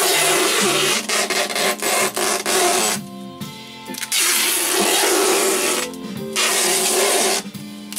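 Strapping tape screeching as it is pulled off a handheld tape-gun dispenser in three long pulls, the first about three seconds, the last under a second, with short breaks between them. Music plays underneath.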